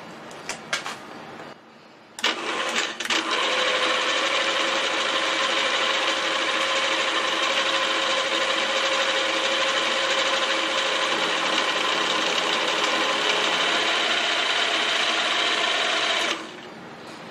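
Milling machine's end mill cutting steadily across the top of a metal block held in a vise, with several held tones in the cut. A few clicks come first; the cut begins about two seconds in and stops suddenly near the end.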